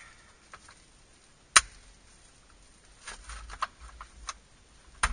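Hand-handling clicks and knocks of the sunroof switch being worked up into the headliner opening: one sharp click about a second and a half in, then a run of lighter clicks and rubbing a couple of seconds later, and another click near the end.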